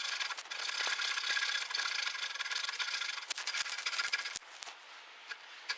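Hand keyhole saw cutting a narrow wedge slot into a wooden tenon, a steady rasping of saw teeth in wood that stops about four seconds in.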